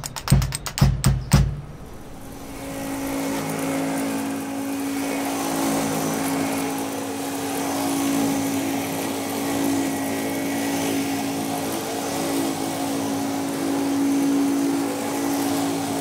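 A few last drum beats of music, then a steady machine hum with one constant low tone and a hiss behind it.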